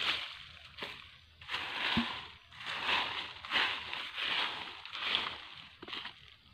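Footsteps crunching through dry leaf litter on a forest floor at a steady walking pace, a crackly rustle with each step.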